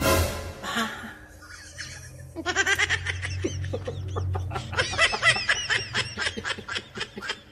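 A man laughing hard in rapid, high-pitched giggles that start about two and a half seconds in, after a short, loud burst of sound right at the start.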